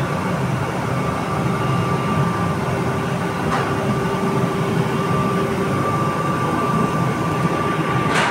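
Steady rumble of commercial gas burners firing under large aluminium cooking pots, with a ladle knocking against a pot twice, about three and a half seconds in and near the end.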